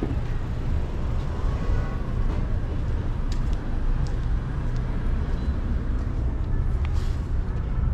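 City street ambience: a steady low rumble of motor traffic, with faint voices of passers-by and a few light clicks.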